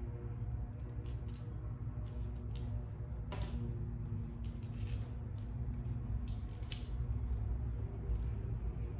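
Small metal hardware clicking and clinking at uneven intervals as docking-hardware pieces are handled and fitted onto a bolt, with one sharper click a little after three seconds. A steady low hum runs underneath.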